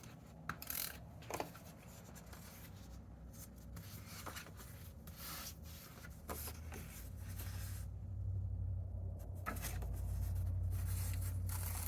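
Paper pieces being handled and rubbed on a desk, with scattered light rustles and clicks, while a low steady hum builds through the second half and becomes the loudest sound.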